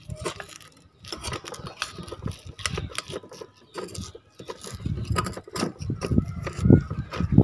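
A metal spoon scraping and clinking against the bottom of a frying pan as fried eggs are loosened from it: irregular scrapes and taps, heavier and louder in the second half.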